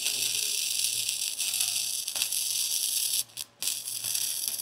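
Self-shielded flux-core wire welding arc on a Furius Flex 121 wire welder, running steadily with a hissing crackle while a bead is laid on thin sheet steel. The arc drops out twice for a moment just after three seconds in and strikes again.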